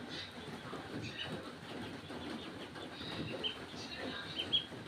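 Short high bird chirps now and then, two of them a little louder near the end, over the faint smacking and chewing of two cats eating cake crumbs.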